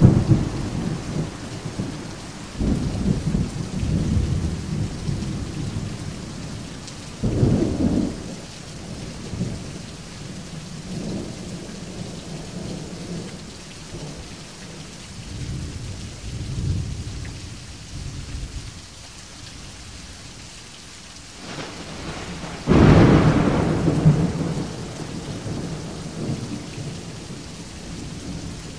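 Steady rain with thunder rumbling low several times. The loudest peal comes about three-quarters of the way through: a sharper clap that trails off into rumble over a couple of seconds.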